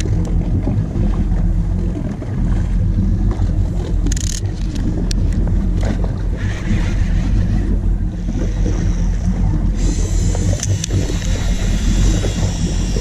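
Boat engine running steadily at low revs, with wind buffeting the microphone and sea noise; a brighter hiss comes in about ten seconds in.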